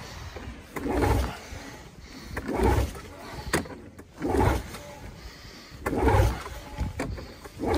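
Recoil pull-starter cranking a Yamaha SX Viper S snowmobile's 700 cc two-stroke triple on a cold start: about four pulls, each a short rasping whoosh, roughly one every second and a half. The engine has not fired yet.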